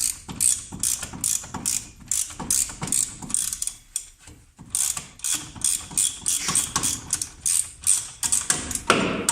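Ratchet wrench being worked back and forth, a steady run of short rasping clicks, about three strokes a second.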